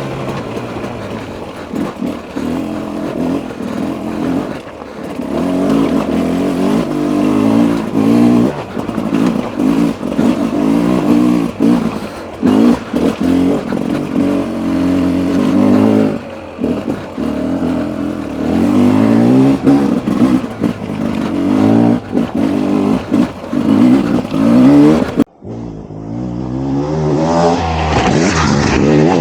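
Beta RR 300 single-cylinder two-stroke enduro engine revving up and falling back over and over as the bike is ridden over rough trail, with knocks from the bike over the ground. The sound cuts out for a moment about three-quarters of the way through, then the revving picks up again.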